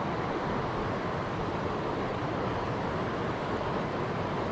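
Steady rushing of flowing river water, an even wash with no breaks.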